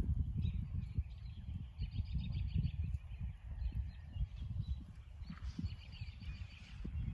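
Wind rumbling on the microphone in gusts, with small birds chirping and trilling faintly in the background, twice in short spells.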